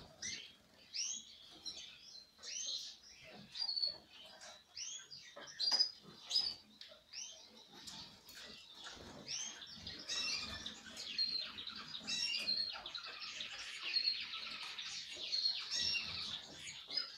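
A group of domestic canaries chirping: many short, arched call notes, growing into denser twittering in the second half, with scattered small clicks.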